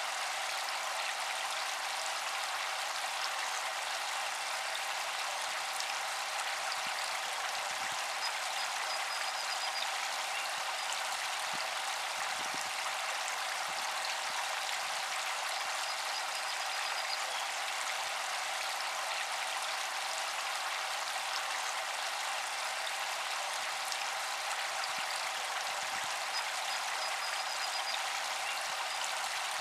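Steady splashing of water: fountain spray falling back onto a pond surface, an even patter that does not change.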